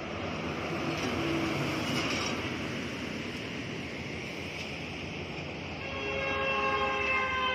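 Steady rush of motorway traffic. About six seconds in, a passing vehicle's multi-tone horn sounds and holds, its chord sliding slightly lower as it goes by.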